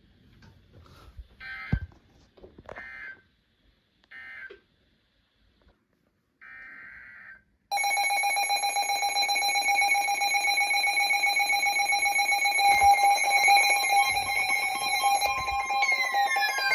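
Emergency Alert System audio: three short buzzy data bursts marking the end of the previous alert's message, then one longer data burst, and from about eight seconds in a loud, steady EAS attention tone held without a break.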